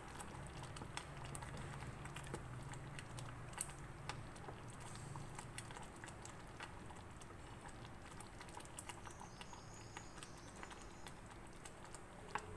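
Wooden spatula stirring thick, simmering gravy in a stainless steel pan, with faint, irregular light clicks and taps.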